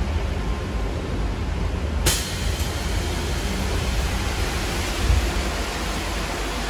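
Ride noise inside a moving all-electric articulated city bus: a steady low rumble with a hiss on top. About two seconds in, the hiss turns suddenly louder and brighter and stays so.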